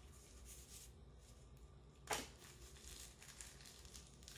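Near silence with faint handling sounds of a small wireless charging pad and its packaging, including one short rustle about two seconds in.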